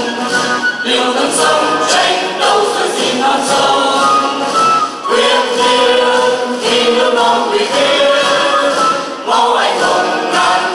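A choir of men and women singing a song together, breaking between phrases about every four seconds.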